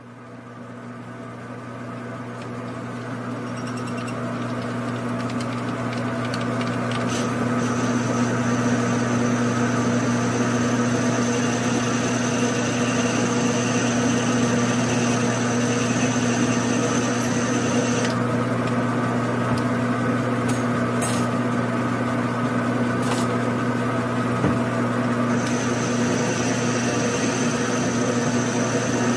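Grizzly G9972Z metal lathe running steadily with a hum while a twist drill in the tailstock chuck bores into a spinning brass part, growing louder over the first several seconds. A thin high whine comes in several seconds in, drops out about two-thirds of the way through and returns near the end, with a few light clicks.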